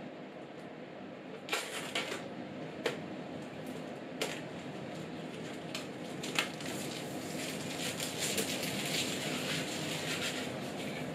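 Thin protective plastic film being peeled and handled on a monitor stand: a few sharp clicks and snaps, then a stretch of crinkling plastic near the end.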